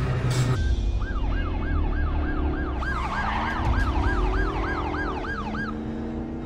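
Police car siren in a fast yelp, its pitch rising and falling about three times a second, starting about half a second in and stopping shortly before the end, over a low rumble.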